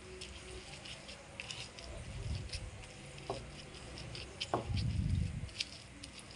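Stone pestle crushing fried tempe into sambal in a stone mortar (ulekan and cobek): scattered small clicks and scrapes of stone on stone, with dull thumps about two seconds in and again past the middle, and a couple of sharper knocks.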